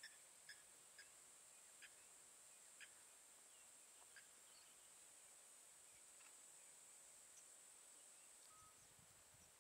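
Near silence: faint outdoor ambience with a steady high-pitched hiss, and a few short faint chirps during the first four seconds.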